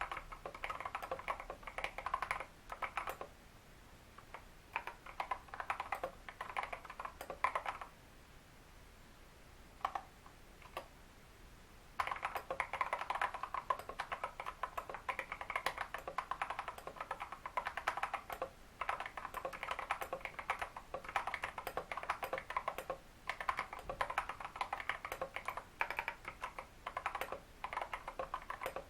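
Typing on a Royal Kludge RK100 mechanical keyboard with lubed Holy Panda tactile switches and XDA keycaps: quick runs of keystrokes. A third of the way in there is a pause of about four seconds, broken by a couple of single keystrokes, and then the typing runs on steadily.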